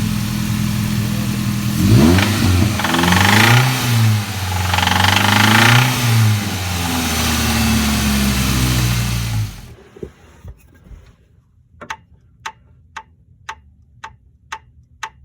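2005 Ford Ranger's 2.3-litre four-cylinder engine idling, revved up twice and let back down, then shut off near the end of ten seconds; the owner takes its noise for a bad rod bearing. After it stops, a steady clicking, about two clicks a second.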